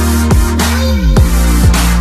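Electronic dance music with heavy sustained bass and a steady beat, one bass note sliding down in pitch about a second in.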